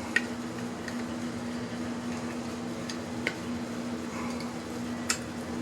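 Three short, sharp clicks from small parts being handled while electronic scrap is taken apart, over a steady low hum.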